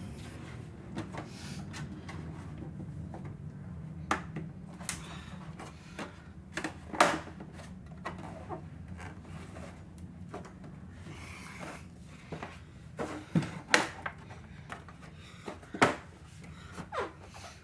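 Hard plastic parts of a toy vehicle model being handled and fitted together: about ten irregular clicks and knocks, the sharpest about a third of the way in and again near the end, over a steady low hum.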